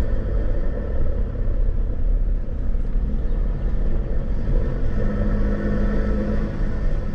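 A 4WD driving on a dirt track, a steady rumble of engine and tyres on the unsealed surface.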